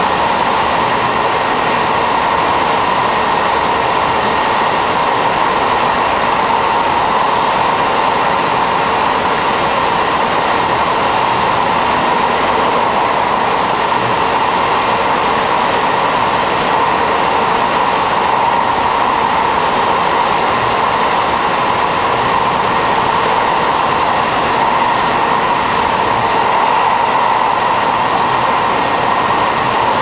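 Steady running noise inside a JR Hokkaido KiHa 40 diesel railcar under way: its N-DMF13HZI diesel engine and the wheels on the rail make an even, unbroken roar that neither rises nor falls.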